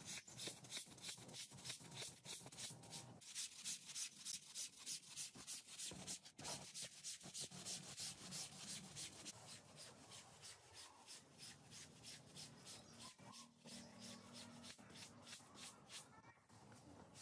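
Long-handled scrubbing brush scraping back and forth over a wet, soapy rug in quick even strokes, about three a second. The strokes ease off after the middle.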